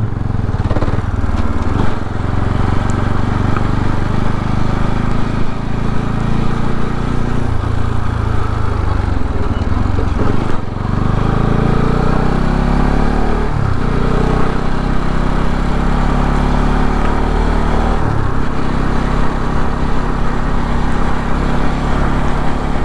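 Motorcycle engine running as the bike is ridden along at low speed. Its note drops and picks up again several times with the throttle.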